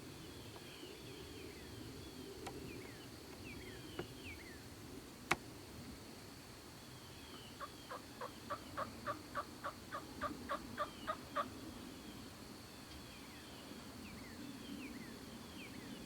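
A run of about a dozen turkey yelps, roughly three a second and getting louder, with a single sharp snap a few seconds before them. Small birds chirp faintly in the background.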